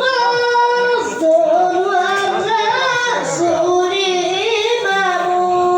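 A child's solo voice chanting a devotional samaa (Islamic religious chant), holding long high notes with small ornamental turns.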